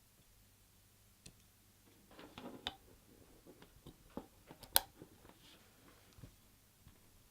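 Scattered small clicks and rustles, with one sharp click about five seconds in.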